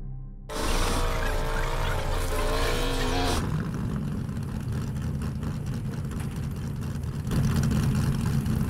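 Vehicle engine noise. First a loud engine with a wavering pitch for about three seconds, then a steadier low engine rumble.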